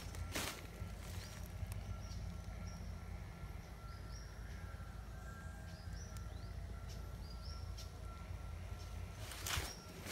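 Outdoor rural ambience: birds chirping in short repeated calls over a steady low rumble, then footsteps crunching on a gravel road near the end.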